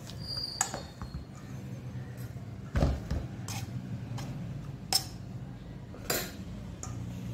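Steel tumbler knocking and scraping against a stainless-steel bowl as hot rice-flour dough is kneaded with it: about five irregular metallic clinks and thuds, the loudest about three seconds in, over a steady low hum.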